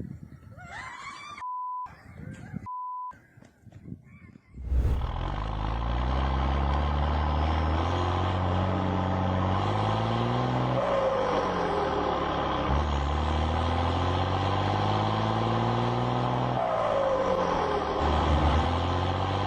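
Two short beeps, then a loud vehicle engine starts up about five seconds in. It keeps running, its pitch climbing steadily and dropping back several times, as when accelerating and shifting gears or revving.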